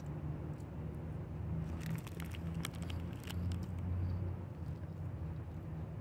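Crunchy cheese puffs being chewed, with a run of short crisp crunches about two to three seconds in, over a steady low rumble.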